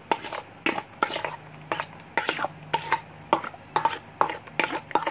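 Metal spoon scraping and knocking against a metal mixing bowl while stirring a thick, creamy lotion mixture, a stroke roughly every half second, several with a brief metallic ring.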